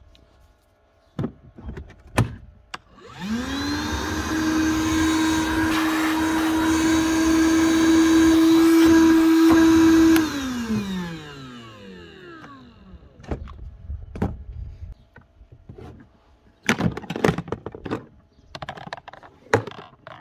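Evolution 18V cordless wet/dry vacuum switched on: its DC motor spins up with a rising whine about three seconds in, runs at a steady pitch for about seven seconds, growing slightly louder, then is switched off and winds down with a falling whine. Clicks and knocks of the plastic unit being handled come before and after.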